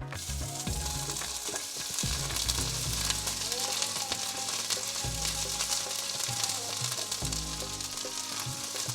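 Ginger sizzling as it is fried in hot sesame oil in a pan. The sizzle starts suddenly and keeps going steadily.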